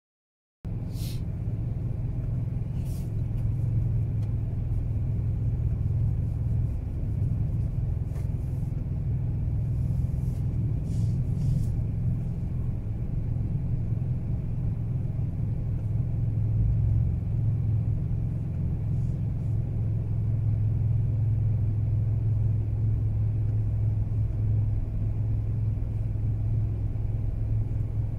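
Steady low rumble of a Mazda 3 on the move: engine and tyre noise from the road, with a few faint clicks now and then. The sound cuts in about half a second in, after a short dead-silent gap.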